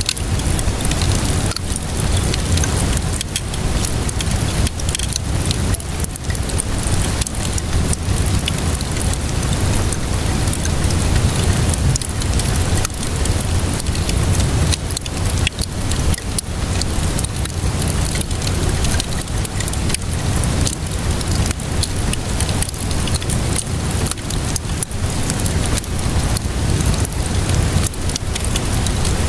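Wood fire crackling with frequent sharp pops, over a steady hiss of rain and a low rumble.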